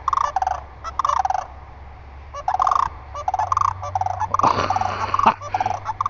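A pair of sandhill cranes calling together in a run of repeated rolling, rattling bugle calls at two alternating pitches, with a brief rush of noise about four and a half seconds in.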